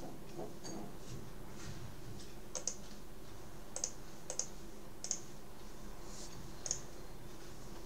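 About seven sharp, short clicks at a computer, irregularly spaced and some in quick pairs, over a steady low hum.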